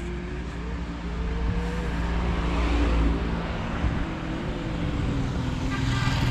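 A 2015 Kawasaki Z800's inline-four engine running while under way, with wind rush over it. The engine pitch rises gently over the first couple of seconds, then eases back and holds fairly steady.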